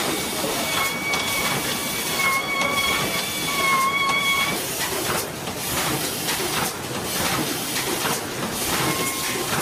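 Fully automatic CNC screen-printing machine running: continuous pneumatic air hiss over the clatter of its feeders, rollers and air cylinders. A thin steady whistling tone sounds from about a second in until about four and a half seconds, and briefly again near the end.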